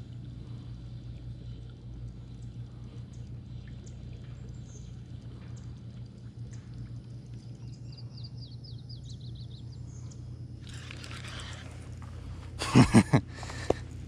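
Pond-side outdoor ambience: a steady low hum, with a bird chirping a quick run of falling notes about two-thirds of the way in. Near the end comes a person's short, loud exclamation in three quick bursts.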